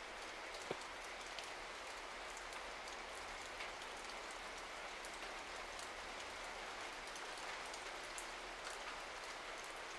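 Steady faint hiss with scattered soft ticks, like light rain, and a small click just under a second in.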